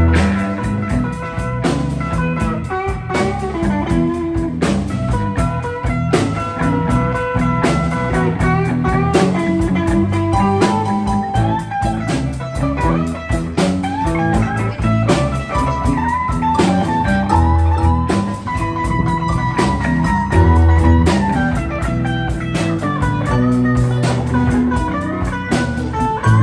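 Live electric blues band playing a steady blues groove, with electric guitars and a drum kit.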